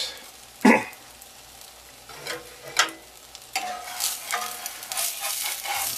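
Metal spatula scraping against a cast iron skillet as it works under a frying egg white to free it, over the sizzle of the egg in hot oil. A sharp scrape about a second in and another near the middle are the loudest sounds, then quicker scraping strokes follow in the last couple of seconds.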